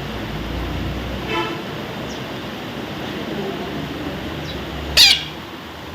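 A parrot gives one loud, short squawk about five seconds in, with a fainter call a little after one second in, over a steady low rumble of outdoor noise.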